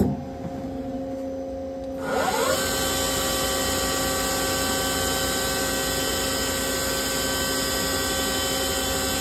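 Doosan Lynx 220L CNC lathe spindle spinning up about two seconds in, its pitch rising briefly, then running steadily at speed with a whine of several steady tones over a hiss.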